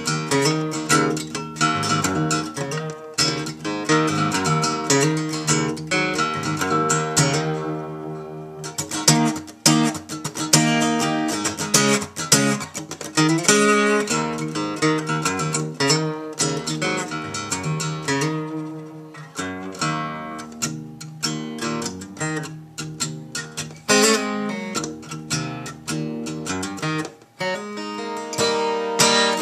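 A freshly restrung 1963 Gibson J-50, a slope-shoulder mahogany dreadnought acoustic guitar, played solo with picked notes and strummed chords that ring on between phrases.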